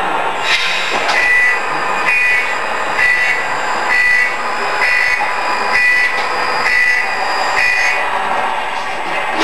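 RC model truck's sound unit giving reversing beeps, a short high beep about once a second, over the steady running noise of the model's drive as the Tamiya Mercedes 1838 backs up with its lowloader. The beeps stop near the end.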